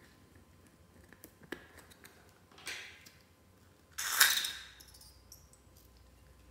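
Light clicks and rustling of a rubber balloon being handled, then about four seconds in a loud, sharp snip as small scissors cut through the balloon's neck, fading over about half a second.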